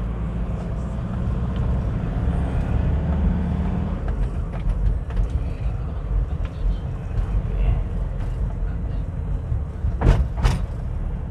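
Vehicle on the move: a steady low engine and road rumble, with two short sharp clicks about ten seconds in.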